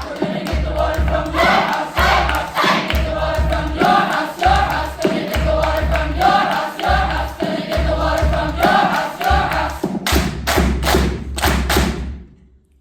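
Varsity choir singing over steady low thumps on the beat, about two a second. About ten seconds in, the singing gives way to a quick run of sharp hits, then everything stops dead on the final cutoff.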